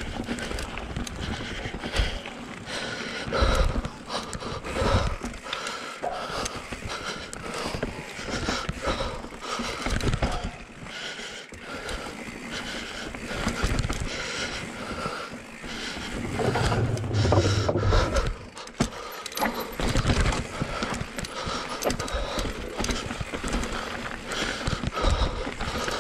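Enduro mountain bike riding fast down a dirt forest trail: tyres scrabbling over dirt, roots and rocks, with the chain and frame rattling and irregular thumps as the bike hits bumps.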